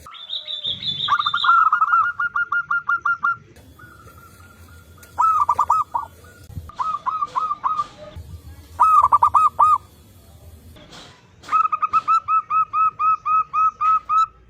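Zebra doves (perkutut) cooing: several bouts of quick, rhythmic staccato notes, the longest series near the end, with birds answering one another. A brief higher-pitched call sounds at the start.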